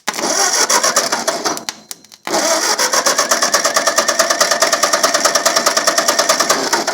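1951 Ford 8N's four-cylinder flathead engine cranked over by its starter for a compression test, with the gauge on cylinder 1. It makes a rapid, even chugging as each compression stroke comes around. It cranks for under two seconds, stops briefly, then cranks again through the rest; the cylinder reads solid.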